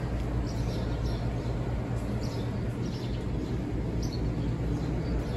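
Small birds chirping in short high bursts every second or so, over a steady low outdoor rumble.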